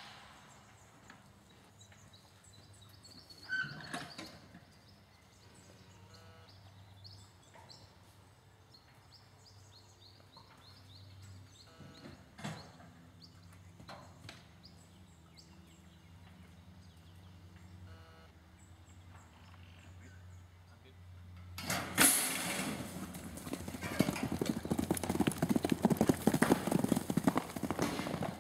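A fairly quiet stretch with a low steady hum and a few faint clicks and chirps. About 22 seconds in, the loud, rapid, rhythmic hoofbeats of two racehorses cantering on a dirt track take over.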